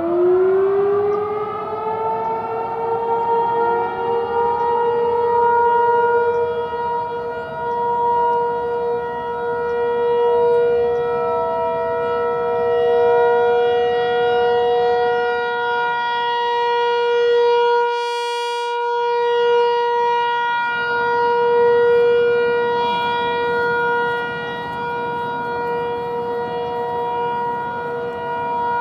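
Federal Signal 508-128 rotating outdoor warning siren sounding a full alert steady tone. It winds up quickly in pitch at the start, then holds a steady wail whose loudness swells and fades as the rotating head sweeps past.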